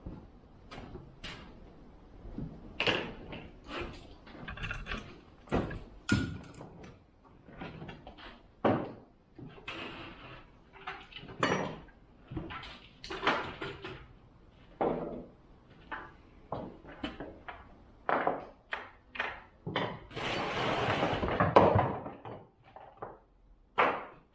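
Things being moved around and set down on a workbench as it is cleared: a string of separate knocks and clunks, with a rough sound lasting about two seconds near the end.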